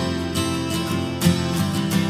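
Background music led by strummed acoustic guitar, with a strong strum about every second and a half.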